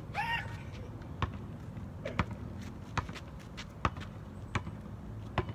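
Basketball dribbled on an outdoor asphalt court: six sharp bounces, about one every 0.8 s. A brief voice sounds just after the start.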